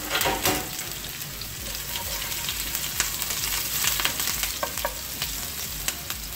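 Chopped shallots, curry leaves and rice grains sizzling and crackling in hot oil in a frying pan, with a spatula stirring and scraping across the pan a few times.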